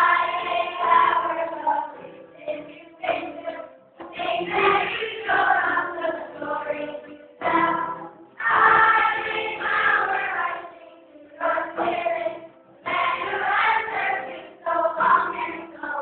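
A group of children singing a song together, phrase after phrase with short breaks between them.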